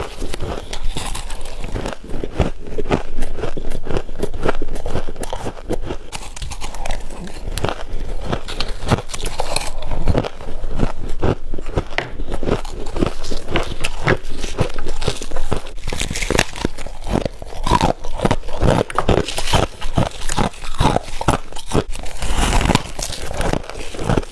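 Freezer frost being bitten and chewed up close: a steady run of dense, crackling crunches.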